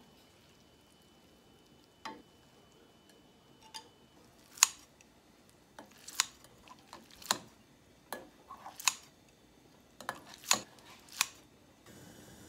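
Kitchen scissors snipping soft boiled glass noodles in a bowl: about eight sharp snips, unevenly spaced, starting a little over four seconds in.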